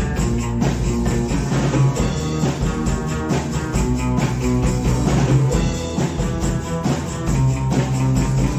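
Live rock band playing: electric guitar, electric bass and drum kit keeping a steady beat.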